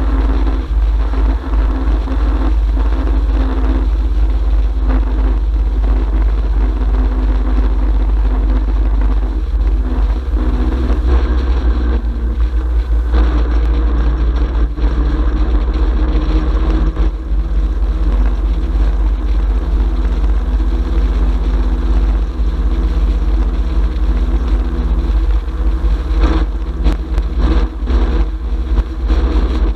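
Motorcycle engine running steadily at cruising speed, with tyres rolling over an open steel-grate bridge deck and heavy wind rumble on the microphone.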